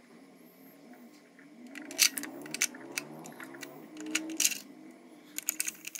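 Plastic clicks and taps of AA batteries being pushed into the battery compartment of an Axial SCX24 pistol-grip radio transmitter and its battery cover being handled and fitted. The sharpest clicks come about two seconds in and again around four and a half seconds, with a quick cluster near the end.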